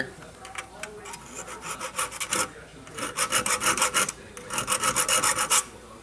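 Hand file rasping on the steel dog of a trap, in quick short strokes: light, scattered strokes at first, then two fast runs of strokes from about the middle to near the end. The dog is being filed down so that it will catch in the pan's bottom notch as a night latch.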